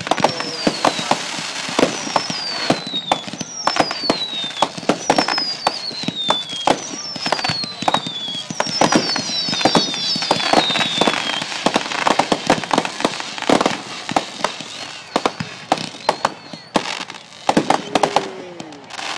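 Fireworks display: a dense run of bangs and crackles, with falling whistles from whistling shells about every one and a half seconds through the first half, several overlapping near the middle.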